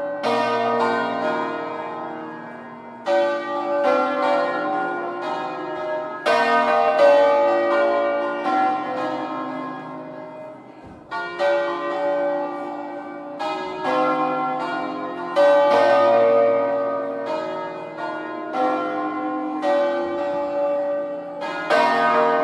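Full swinging peal of a ring of five hand-rung church bells tuned in B-flat, cast by Felice Bizzozero in 1859, the bells swinging full circle on their wheels. The bells strike about once a second, each new note overlapping the ringing of the last.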